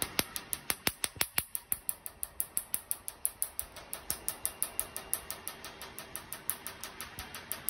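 Tattoo-removal laser handpiece firing pulses onto tattoo ink in the skin: a rapid, even train of sharp snapping clicks, about six a second.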